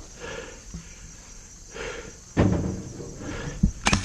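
Heavy breathing close to the microphone, one breath about every second and a half. About two and a half seconds in comes a heavy knock with rustling of gear. Right at the end an electric airsoft rifle starts a rapid full-auto burst.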